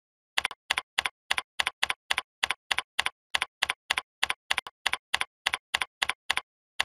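Computer keyboard keys being typed at an even pace, a steady run of clicks about three a second, each keystroke a quick double tap as the key goes down and comes back up.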